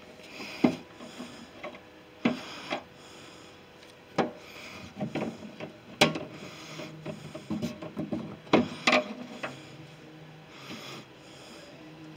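A screwdriver scraping and knocking against the latch parts inside a van's sheet-steel rear cargo door: about nine irregular sharp clicks and knocks with rubbing between them, the loudest about halfway through and again near the end. It is the sound of a latch cable end or rod being worked into its seat.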